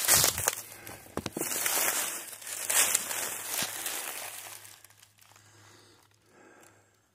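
Crinkling and rustling, as of something being handled or crumpled, loud for about four seconds and then fading away.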